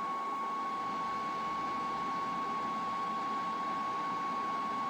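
Steady hiss of dead air from a Midland WR120 weather radio just after an alert's end-of-message tones, with a thin constant high-pitched tone under it.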